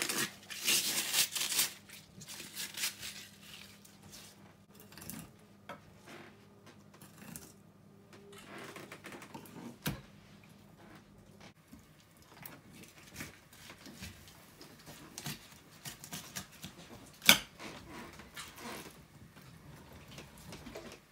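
A plastic bag crinkles and rustles, then a kitchen knife cuts and scrapes through a filefish on a plastic cutting board. Scattered small knocks and clicks come from the knife and board, with one sharp click about 17 seconds in.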